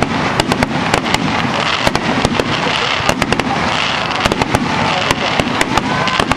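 Star mine fireworks barrage: a rapid, dense run of sharp bangs and crackles, several a second, over a continuous crackling hiss.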